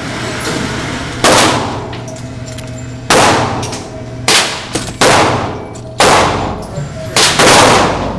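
Six gunshots at uneven intervals of about one to two seconds, each a sharp crack followed by a long fading echo.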